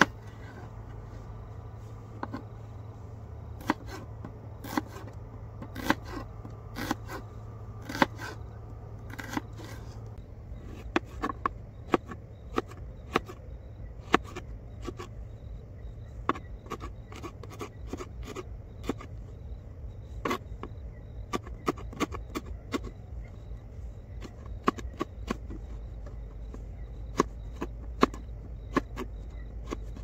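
Knife chopping onion and carrot: irregular sharp knocks, at times several in quick succession, over a steady low hum.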